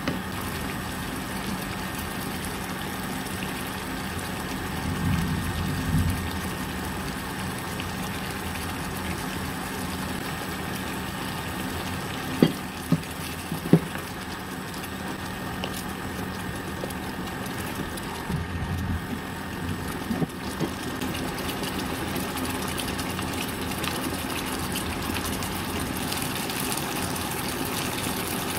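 Curry sauce simmering in a frying pan on an induction cooker, over the cooker's steady hum. About halfway through, a spoon taps sharply against the pan three times.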